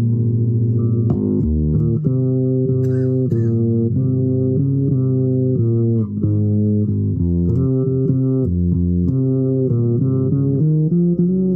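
Solo instrumental improvisation in the bass range: a line of held, connected notes changing every half second to a second, without pause.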